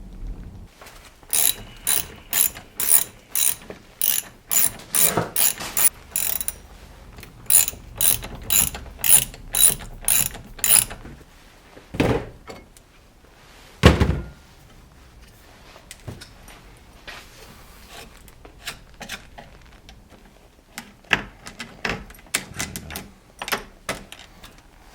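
Ratchet wrench clicking in quick runs of strokes, about two to three clicks a second, with a short pause between the runs. Two dull knocks come about halfway through, then scattered clicks.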